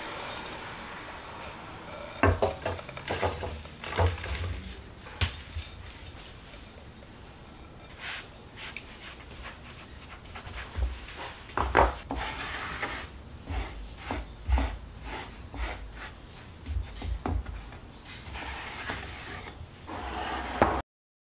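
Graham cracker crumb crust being pressed and worked into a metal springform pan: rubbing and scraping with scattered knocks and taps against the pan. The sound cuts off suddenly near the end.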